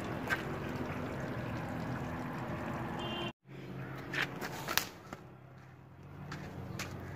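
Steady machine hum with running water, which cuts off abruptly a little over three seconds in. After that it is quieter, with a few light clicks and knocks and a faint low hum.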